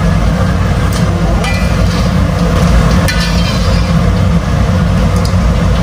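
Hot oil sizzling in a wok of frying battered cempedak, over a steady low rumble, with a few light clinks and scrapes of a metal slotted strainer against the wok as the fried pieces are drained.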